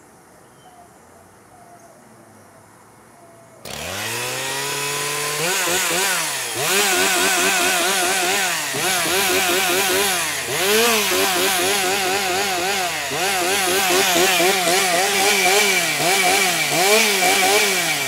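A chainsaw engine starts up suddenly about four seconds in, its pitch climbing as it revs, then runs loud, revving up and down over and over as the throttle is worked.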